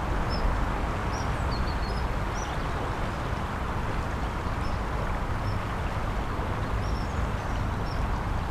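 Flooded river water rushing steadily, with a low rumble of wind on the microphone. Brief high chirps come and go throughout.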